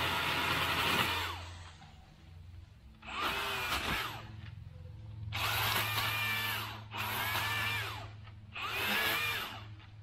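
Milwaukee M18 cordless pole saw running in bursts. A long cut stops about a second in, then come four shorter trigger pulls, the motor's whine rising and falling with each.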